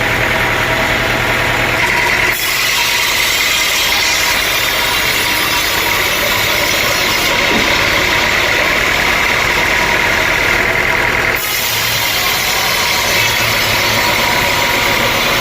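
Sawmill machinery running steadily, a loud engine-like drone with a constant high whine, changing abruptly twice, about two seconds in and about eleven seconds in.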